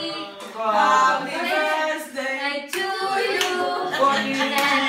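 A group of adults and children singing a birthday song together, with hand claps.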